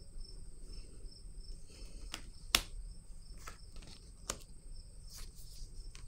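Tarot or oracle cards being handled on a table: a handful of short sharp clicks and taps, the sharpest about two and a half seconds in. Under them runs a faint, steady, high-pitched whine.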